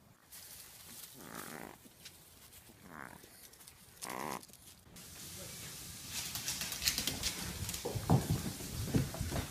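An animal gives three short cries in the first half, followed by rustling noise with a few low knocks near the end.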